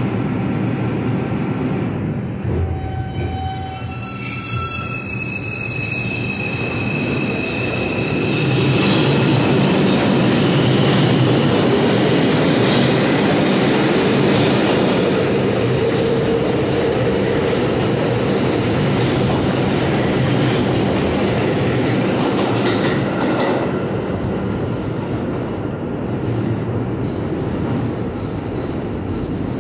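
New York City subway R142 train on the 2 line pulling out of the station: its traction motors whine as it starts off, then the cars rush past with rumbling, clatter and high wheel squeal, the sound easing as the train heads into the tunnel.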